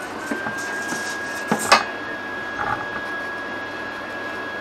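A few light clinks and knocks of metal parts and tools handled on a wooden welding table, the sharpest a little under two seconds in. A steady high whine runs underneath.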